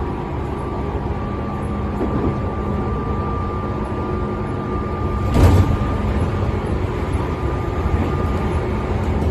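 Tobu 10000 series electric train running between stations, heard from on board: a steady rumble of wheels on rail with a steady hum. A single sharp clack comes about five seconds in.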